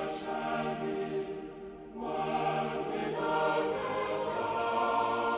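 Choral music: voices singing long held chords, the chord changing about two seconds in.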